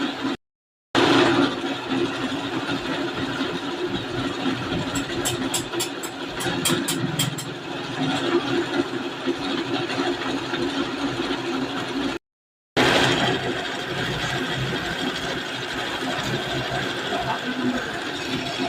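A gearbox-driven machine running with a steady hum, with a quick run of about a dozen sharp clicks some five seconds in: the cracking of a faulty gearbox. The sound cuts out briefly twice.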